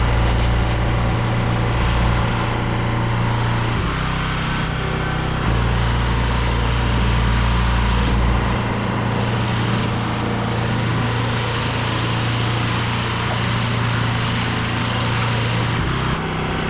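A pressure washer's small petrol engine running steadily under a constant hiss, its low hum shifting slightly in pitch a few times.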